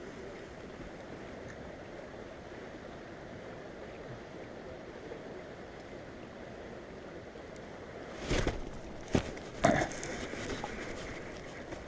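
Steady low wash of wind and water around a small fishing boat, broken about eight seconds in by three sharp knocks or bumps, the third the loudest.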